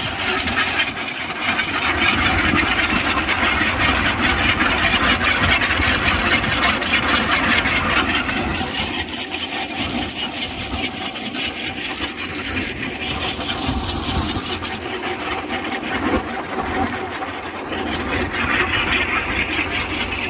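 Massey Ferguson 9500 Smart tractor engine running under load as it drives a chain trencher cutting a pipeline trench, with a fast, steady clatter from the digging chain and soil. It is loudest in the first several seconds, then eases a little.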